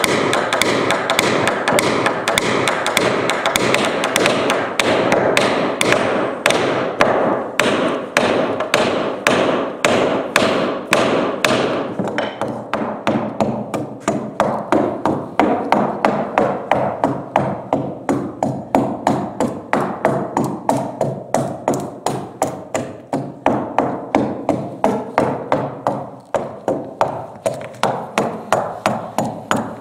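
Steady, rapid strikes on wooden boat planks, about three a second. At first a small hammer taps at wooden plugs set into the planks. From about twelve seconds in, a chouna (Japanese adze) chops and shaves the plank surface, flattening the slight unevenness between joined boards.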